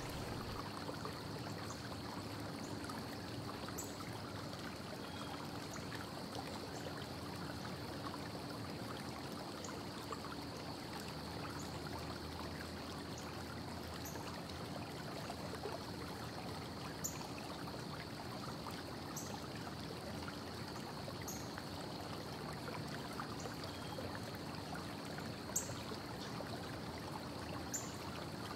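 Steady background hiss with a faint high whine and low hum, and a few faint ticks here and there.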